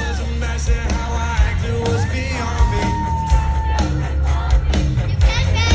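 Live concert music played loud over an arena sound system, with a heavy, steady bass and a singing voice. The voice holds one long note about halfway through.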